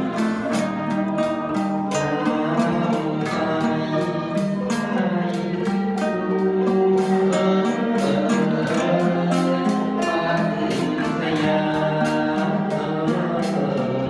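A small Thai classical ensemble of zither-type string instruments playing a quick melody of rapidly struck and plucked notes, with a man singing into a microphone.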